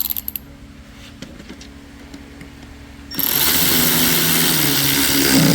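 Cordless power driver running screws into plastic, slowly and steadily. It stops right at the start, leaving a quiet stretch with a few small clicks, then spins again from about three seconds in.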